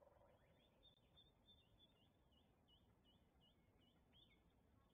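Faint bird calling: a short, high chirp repeated evenly about two or three times a second, over a low, steady background hiss.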